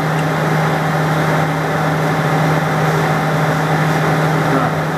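Metal lathe running under power, a steady hum with a continuous whirring noise, as a carbide insert tool step-turns a convex face on a steel workpiece.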